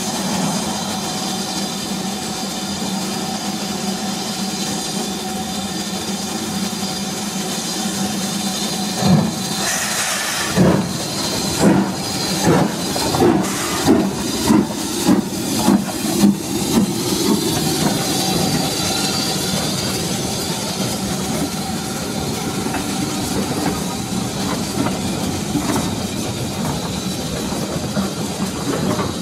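BR Standard Class 4 2-6-4 tank locomotive hissing steam at a stand, then pulling away: about ten exhaust chuffs that come quicker and quicker as it gets its train moving, followed by the steady noise of the train rolling on.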